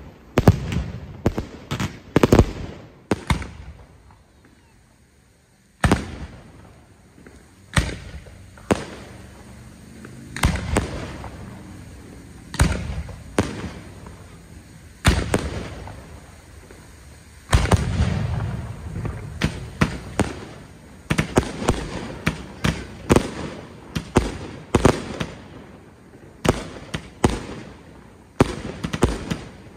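Aerial fireworks shells bursting in a rapid series of bangs, each with a rolling echo. There is a short lull about four seconds in before the bangs resume thick and fast.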